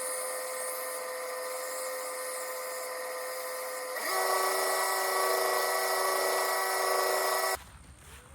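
Belt sander running at low speed with a wet 220-grit belt, grinding the secondary bevels onto a knife blade: a steady whine that gets louder and shifts in pitch about four seconds in, then cuts off abruptly near the end.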